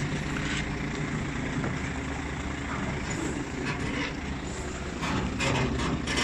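Heavy truck's diesel engine running at low speed as it creeps a long low-loader trailer through a tight turn, a steady low drone that grows louder near the end with some crackling noise.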